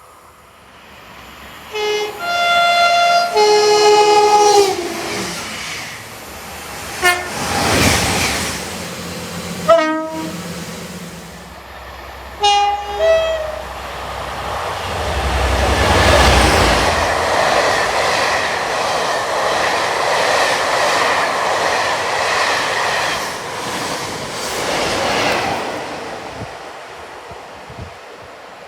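Train horn sounding: a short blast, then a longer chord of several notes held for a few seconds, then a few short toots. The train passes with a loud rush of wheel and rail noise and a low rumble, which fades away near the end.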